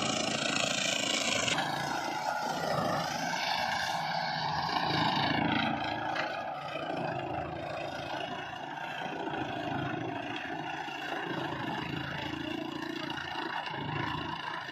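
Kubota MU5501 tractor's four-cylinder diesel engine running steadily while it drives a banana-tree cutting machine. Its pitch dips briefly twice, about three seconds in and about five and a half seconds in, and the sound is a little quieter after the second dip.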